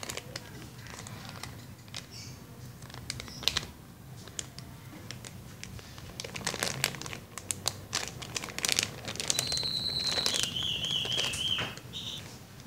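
Clear plastic packaging bag crinkling and crackling irregularly as a squishy toy inside it is handled and turned over. Near the end a high whistling tone, steady and then wavering, sounds for about two seconds.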